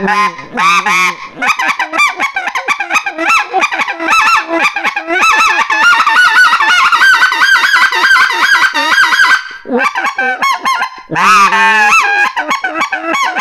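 Mania Zefir micro-diameter reed goose call for greater white-fronted geese, blown with both hands cupped around its end: a long run of fast, high clucking goose notes with a slight rasp, then a few separate notes and a louder, longer call near the end.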